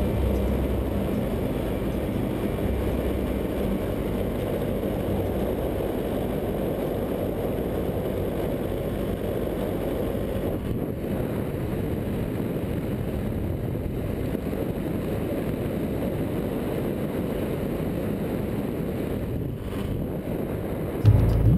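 Paramotor in flight: a steady low rumble of engine and propeller noise mixed with wind rush on the microphone, even throughout with no change in pitch.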